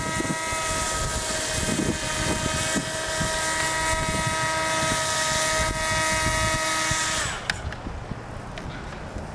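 Model airboat's small engine and propeller running at a steady high buzzing note, which drops slightly and cuts off about seven seconds in. Gusty wind noise on the microphone runs underneath and is all that remains afterwards.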